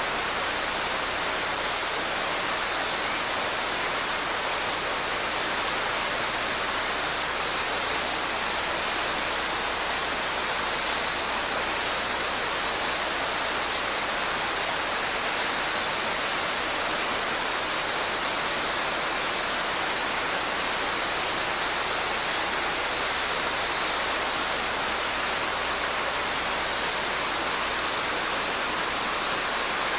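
Mountain stream rushing steadily over rocks, a continuous loud wash of water. Faint minminzemi (robust cicada) song rises and fades in the background a few times in the second half.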